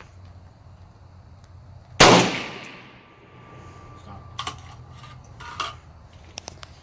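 A single AR-15 rifle shot about two seconds in, its report ringing out and fading over about a second. A few faint short clicks and clinks follow later.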